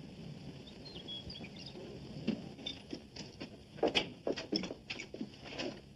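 A few faint high chirps about a second in, then from about two seconds in a run of irregular knocks and clinks: footsteps on a wooden floor and crockery and cutlery at a breakfast table.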